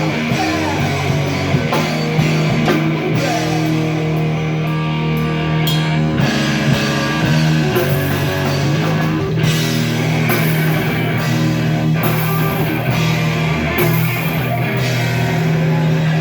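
Live rock band playing at full volume: guitars and drum kit over a sustained low note.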